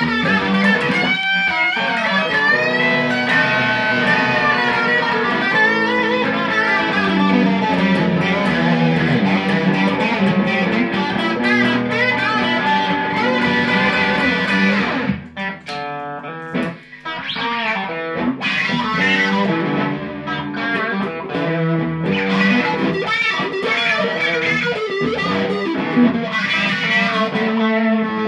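Fender Sixty Six electric guitar played through an amplifier: flowing single-note lines and held notes, dropping about halfway through to a quieter, choppier stretch of short muted notes before the lines pick back up.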